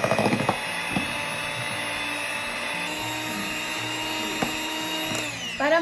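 Electric hand mixer running steadily, its beaters whipping cream and condensed milk to double its volume: a steady motor whine with a few light knocks of the beaters against the plastic tub. The whine dips just at the end.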